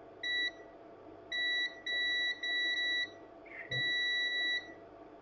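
Multimeter continuity tester giving about five steady high-pitched beeps of uneven length as the probes touch a line on the board. The beep signals a short: very low resistance on that side.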